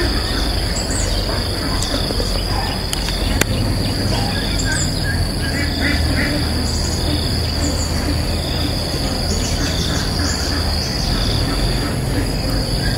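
Red-whiskered bulbuls giving short chirping calls again and again, over a steady high-pitched insect drone and a low steady rumble. A single sharp click sounds about three and a half seconds in.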